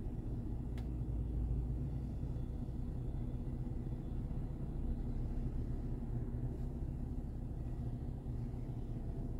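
Vehicle engine idling: a steady low rumble with an even hum.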